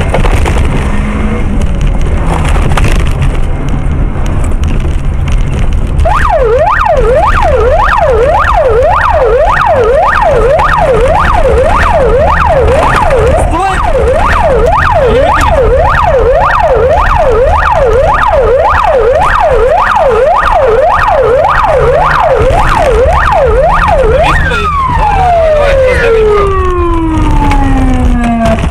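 Police car siren in a fast up-and-down yelp, starting about six seconds in over loud engine and rough-road noise inside the pursuing car. Near the end it winds down in one long falling glide as the siren is switched off.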